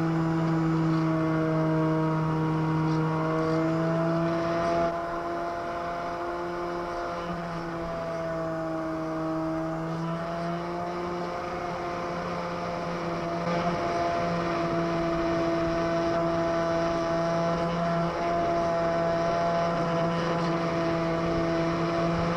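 Electric motor and propeller of a FlyZone Super Cub RC plane in flight, a steady whine with slight wavers in pitch. It eases a little about five seconds in and picks up again around thirteen seconds.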